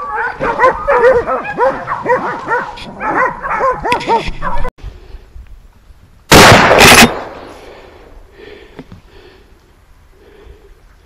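Pack of hunting dogs baying and yelping in an excited chorus that breaks off abruptly about halfway through. A couple of seconds later comes one very loud shotgun blast.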